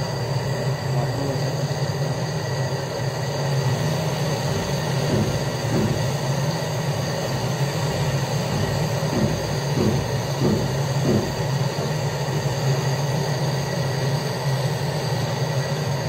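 Handheld cartridge gas torch burning steadily while a refrigerator's capillary tube is brazed into the filter drier, a continuous even rushing noise with a low hum underneath.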